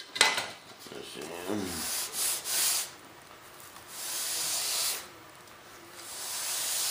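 A metal sanding bar rubbed along the edge of a balsa-sheeted foam piece in three long strokes, each a hissing scrape of about a second, thinning an edge that is too thick.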